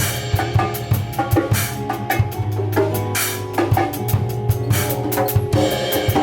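A live band playing, with a drum kit keeping a steady beat over held low notes.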